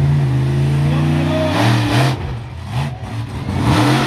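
Monster truck engine running hard, then revved in short repeated bursts from about two seconds in, the pitch rising and falling with each blip of the throttle as the truck pulls a wheelie.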